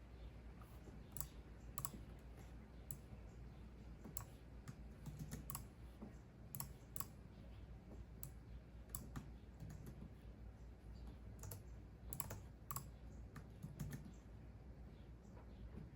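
Computer keyboard typing: quiet, irregular key taps, some in quick short runs, over a faint steady background hiss.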